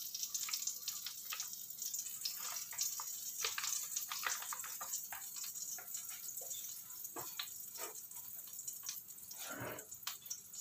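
Hot cooking oil in a wok sizzling and crackling around flour frying in it: a steady hiss with many small, irregular pops.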